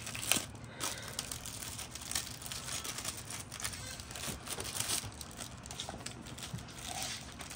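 Rustling and crinkling of packaging, with scattered clicks, as a wallet's brand box is opened and the wallet is unwrapped.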